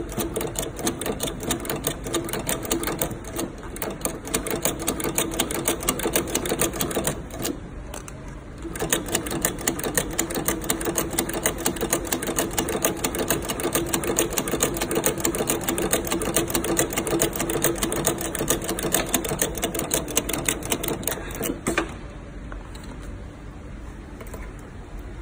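Industrial sole-stitching sewing machine running at speed, a rapid, even clatter of needle strokes. There is a brief pause about eight seconds in, and it stops near the end, leaving a quieter hum.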